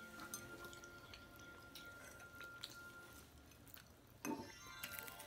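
Faint wet mouth clicks of a toddler chewing pizza, in a near-quiet room with a faint steady high whine over the first three seconds. A brief, somewhat louder noise comes a little after four seconds.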